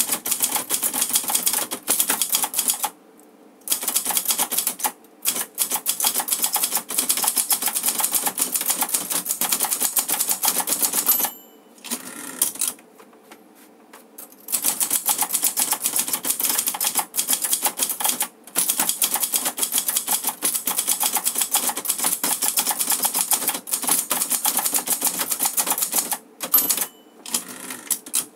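Clover 747TF manual typewriter typed fast: rapid runs of typebar strikes in bursts with brief pauses. A short bell ring comes twice, near 11 seconds and again near the end, and near the end the carriage is returned by its lever.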